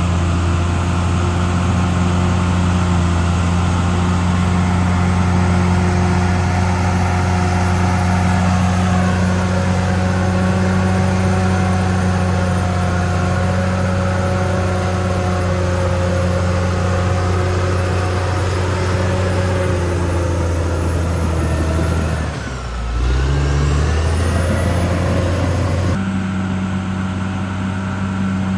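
CAT D6R XL bulldozer's diesel engine running steadily under load, with a brief dip in engine note about three-quarters of the way through before it comes back up.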